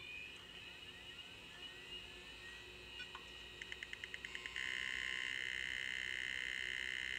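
A 486 PC's internal speaker sounding a POST beep code as the machine boots with its RAM reinstalled. About three and a half seconds in comes a quick run of short beeps, then one long steady beep from about four and a half seconds on. It is an error code, but a different one from the no-RAM code, so the board recognizes that RAM is present.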